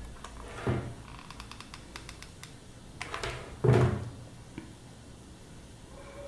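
Two dull knocks of handling noise about three seconds apart, the second louder and deeper, with a few faint light ticks between them.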